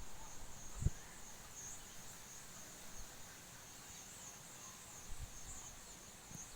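Insects trilling steadily in a high, wavering chorus, with a brief low buffet of wind on the microphone about a second in and a few fainter gusts later.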